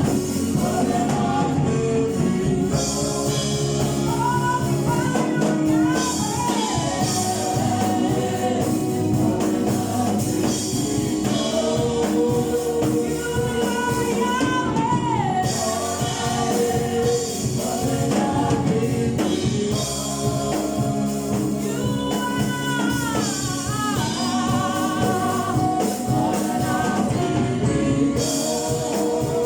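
Church choir singing a gospel song with band accompaniment, drums keeping a steady beat.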